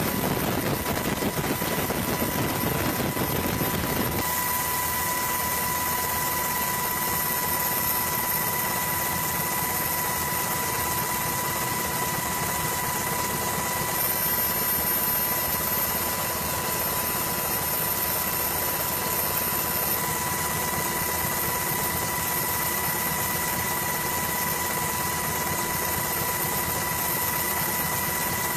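Steady aircraft engine and rotor noise heard from on board, a continuous rushing drone with a constant high whine over it. The low rumble thins out about four seconds in.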